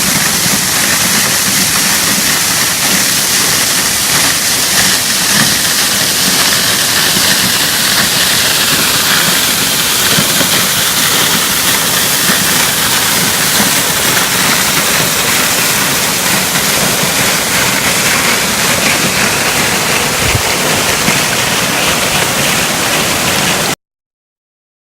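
Waterfall: a steady, loud rush of falling water pouring and splashing, which stops abruptly near the end.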